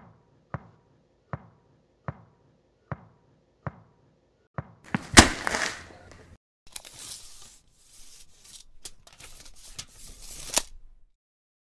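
Cartoon sound effects: seven evenly spaced knocking footsteps as a character walks in, then a heavy thump, the loudest sound, as a craft bin is set down. About a second later comes a stretch of rattling and rummaging through the bin's supplies, ending in a sharp knock.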